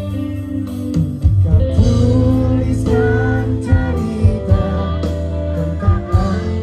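Live pop band playing loud through a concert sound system: a steady drum beat, guitar and a male voice singing.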